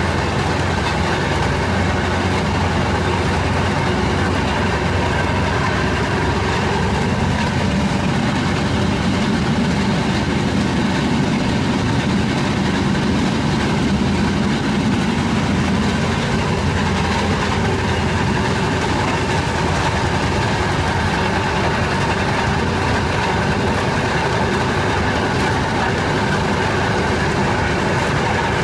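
Fairmont M19 rail speeder's single-cylinder two-stroke engine running steadily under way, with its wheels rolling on the rails.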